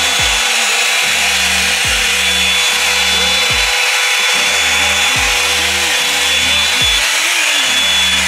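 Hair dryer running steadily with a thin high motor whine over the rush of air, and low rumbles that come and go every second or two as the airflow hits the microphone.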